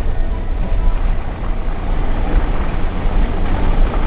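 Steady low rumble of a moving car heard from inside the cabin: engine and tyre noise while driving.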